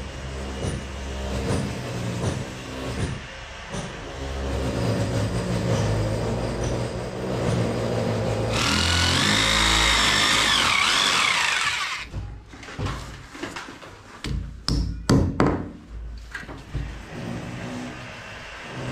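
Corded electric drill boring a hole into the wall for about three and a half seconds, a loud whine that wavers in pitch, drilling anchor holes for an air conditioner's mounting plate. Afterwards comes a run of sharp knocks and taps, and before the drilling a low, shifting hum.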